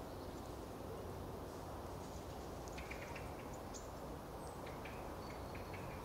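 A few faint, short bird chirps in the second half, over a steady low outdoor background hiss.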